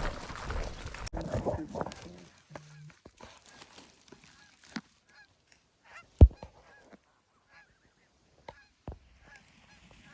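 Geese honking in a long string of short, repeated calls, after about two seconds of rustling. A loud thump about six seconds in and a softer one near nine seconds.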